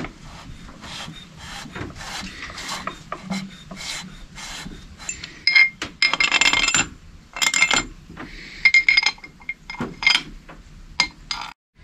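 Metal engine parts and hand tools clinking, scraping and rattling while a two-stroke jet-ski engine is put back together. The handling is irregular, with denser bursts of ringing metal clatter around the middle and again later on.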